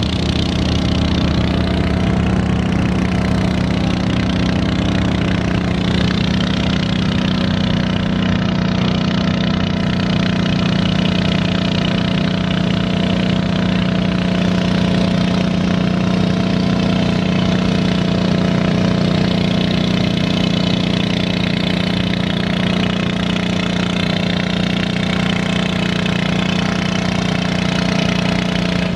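Small garden tractor engine running steadily under load, pulling a weight-transfer sled down the dirt track, with no revving.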